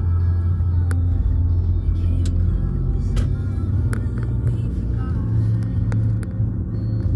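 Steady low road rumble of a moving car, heard from inside the cabin, with faint music over it and a few light clicks.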